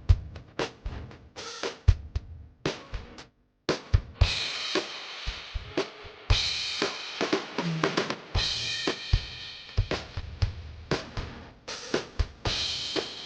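Background music led by a drum kit: kick drum, snare and cymbal hits in a steady beat.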